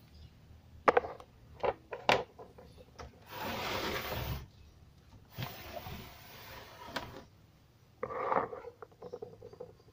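Handling noise as hands work in an open amplifier and move the recording device: a few sharp clicks and knocks in the first two seconds, then two stretches of rubbing, one about a second long and one about two seconds long, and a short scuff near the end.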